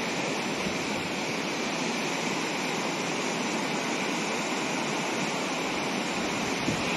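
Floodwater of a river swollen by a heavy storm, rushing and churning over rocks in a steady roar.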